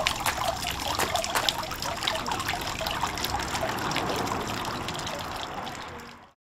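Water bubbling and splashing as it wells up from a small stone spout into a pool, with a busy patter of little splashes. It fades out just before the end.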